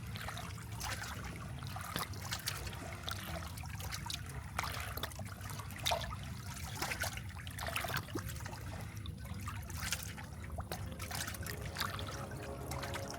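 Water splashing and trickling in irregular small splashes, over a steady low hum.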